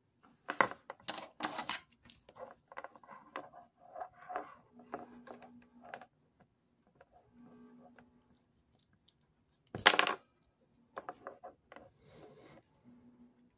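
Clicks and knocks of hard plastic being handled: a microwave oven's cooling fan in its white plastic frame and its power cord and plug, picked up and moved about. A cluster of sharp clicks comes near the start and the loudest knock about ten seconds in.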